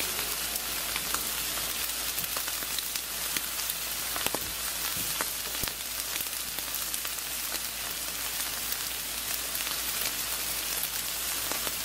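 Steak sizzling on a grill over open flame: a steady hiss of fat frying, with scattered crackles and pops.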